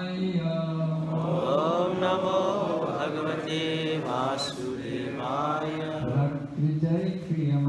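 A man's voice chanting a Sanskrit verse in a slow, melodic recitation, in phrases that rise and fall in pitch.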